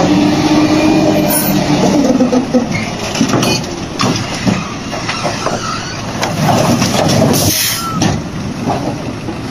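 Loud running machinery with many clattering knocks.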